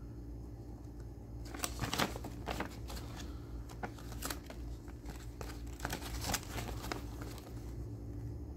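A printed paper instruction leaflet being unfolded and refolded in the hands, crinkling and rustling on and off from about a second and a half in until about seven seconds in, over a steady low hum.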